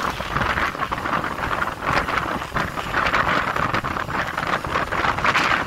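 Steady rushing road noise heard from a moving motorcycle: wind over the microphone mixed with passing traffic.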